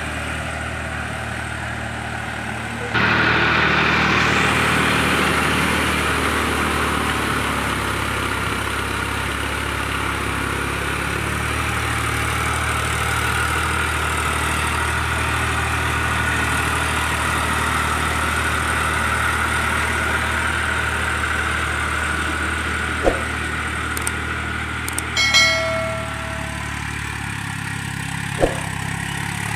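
Eicher diesel tractor engine running steadily while it drives a rotavator through flooded paddy mud; it gets louder about three seconds in. Near the end there is a short electronic chime, the sound effect of a subscribe-button graphic.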